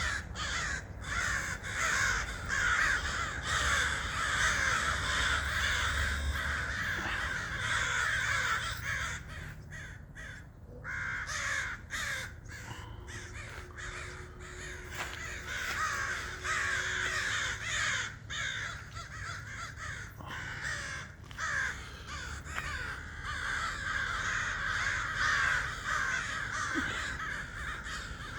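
A large flock of birds, crows among them, calling all at once in a dense, continuous din of overlapping caws and chatter. The din eases a little midway and swells again near the end.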